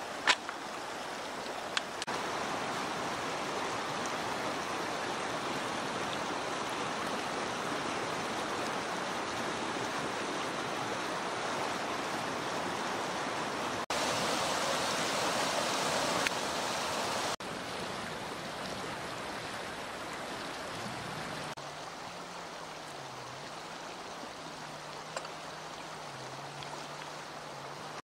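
Shallow river rushing over stones, a steady watery noise that grows louder for a few seconds in the middle and falls back lower later. A low wavering hum comes in about three quarters of the way through.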